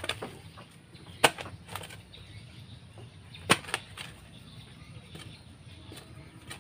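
A hand hoe chopping into damp soil: two sharp strikes about two seconds apart, one about a second in and one about halfway through, with fainter knocks and scrapes of earth between.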